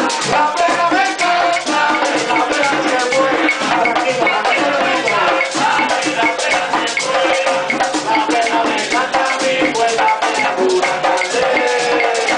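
Live Puerto Rican plena: several panderos (hand-held frame drums) beaten in a fast interlocking rhythm, with a güiro scraping and a group of men singing over them.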